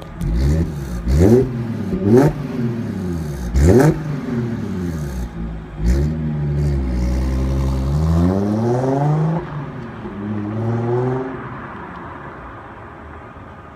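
Audi S4's supercharged 3.0-litre V6, breathing through an AWE Touring exhaust and non-resonated downpipes, revved sharply three times while standing, then pulling away under hard acceleration: the pitch climbs through one gear, drops at the shift, climbs again, and the sound fades as the car drives off.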